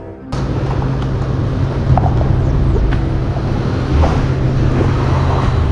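Music cuts off abruptly a moment in, giving way to loud outdoor wind noise on the microphone with a steady low rumble underneath.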